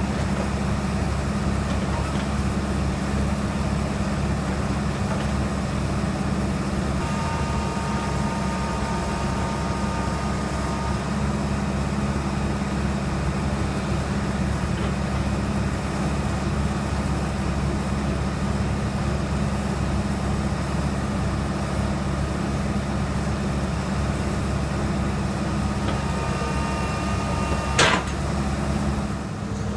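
Diesel excavator engines running steadily with a deep, even drone. A faint high whine comes and goes, and there is a single sharp knock near the end.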